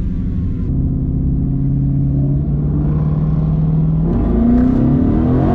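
Twin-turbocharged 5.0 V8 of a 2019 Ford Mustang GT, heard from inside the cabin, running low and steady, then revving up about four seconds in and held at higher revs to bring it up to launch RPM at the drag strip start line.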